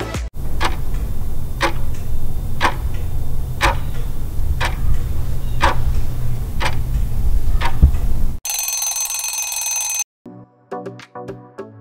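Countdown timer ticking once a second over a steady low rumble. About eight and a half seconds in, a ringing alarm bell sounds for about a second and a half, marking that the time is up. Light music starts again near the end.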